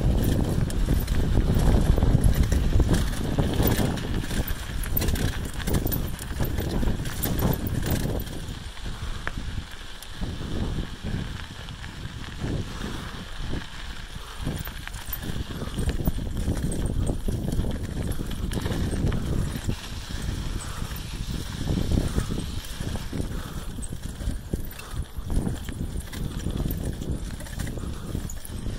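Footsteps crunching on a gravel trail at a walking pace. A low rumble runs under them and is heaviest in the first several seconds.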